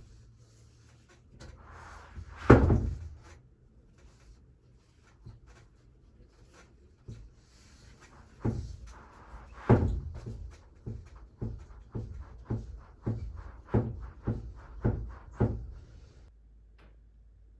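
A series of knocks and thumps: one loud thump about two and a half seconds in, then from about eight seconds in a run of about a dozen knocks spaced a little over half a second apart.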